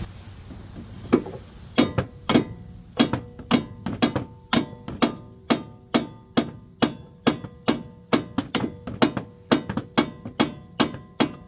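Mallet striking the front suspension of a Chevy HHR over and over, about two to three blows a second, each with a short ringing tone, to knock a seized tapered joint stud loose from the steering knuckle.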